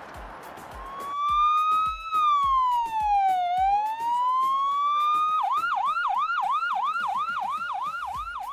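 Ambulance siren: a slow wail that rises and falls, starting about a second in, then switching about halfway through to a fast yelp of several sweeps a second.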